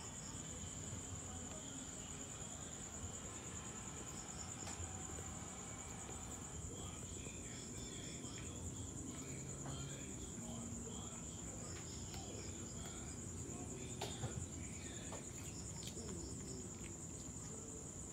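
Crickets chirring in a steady, unbroken high trill, with short groups of pulsed chirps every few seconds and scattered faint clicks.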